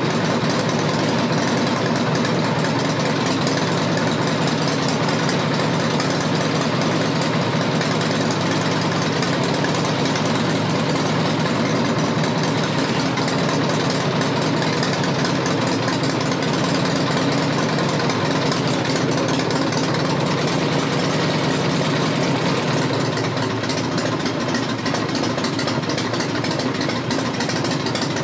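Harley-Davidson Fat Boy's air-cooled 1340 cc Evolution V-twin idling steadily through newly fitted exhaust pipes, easing a little quieter in the last few seconds.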